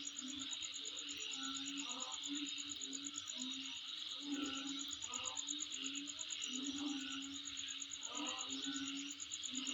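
Insects calling: a steady, fast-pulsed high-pitched trill over a hazy chorus, with shorter, lower-pitched calls coming and going.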